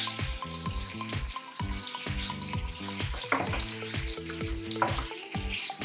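Whole quail browning in hot olive oil in a stainless-steel pot, sizzling steadily while a wooden spoon turns them over.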